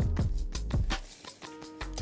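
Background music with a steady drum beat and bass; the drums drop out for a moment about a second in, leaving a few held notes, before the beat comes back.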